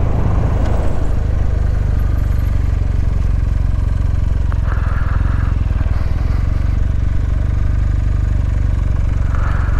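Motorcycle engine running steadily while the bike is ridden, a continuous low rumble of rapid firing pulses.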